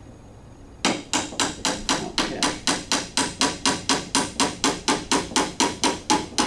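Claw hammer tapping rapidly and steadily on the end of a 3-inch wooden dowel pin, about five light blows a second starting about a second in, driving the pin through the leg and frame holes as it is worked into alignment.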